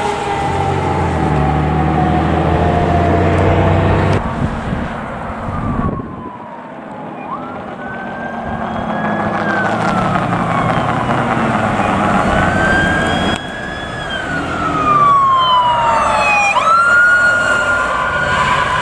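Fire apparatus sirens on an emergency response. First a siren tone falls slowly over a fire engine's engine rumble, cut off abruptly about four seconds in. Then a siren wails up and down repeatedly as a forestry pickup approaches, and near the end it switches suddenly to a faster sweep.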